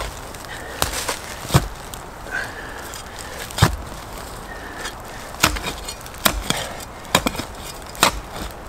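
Short-handled digging tool chopping into the forest floor: sharp, irregular strikes roughly every one to two seconds, with scraping of soil and leaf litter between them.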